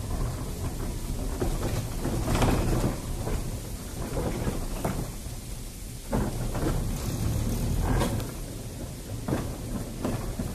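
Heritage electric tram running along the track: a steady low rumble of wheels and running gear, with irregular louder rushes of wind buffeting the microphone.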